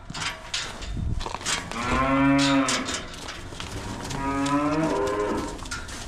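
Dairy cow mooing twice, two long calls a little over a second each with about a second between them, amid scattered knocks and clatter.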